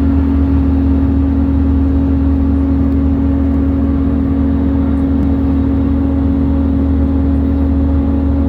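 Steady drone heard inside an Airbus A320 cabin: a constant low hum with a rumble beneath it, unchanging throughout. This is the strange noise that alarmed the passengers.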